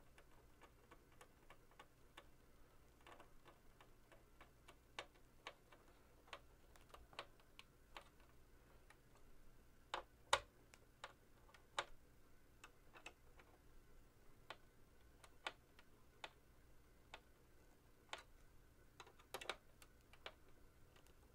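Faint, irregular clicks and taps of small screws being driven and tightened to fix a monitor-arm bracket to the back of a monitor, with a few sharper clicks about halfway through and near the end.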